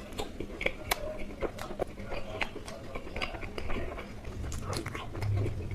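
A person chewing Indian sweets close to the microphone: many small, irregular clicks and crunches.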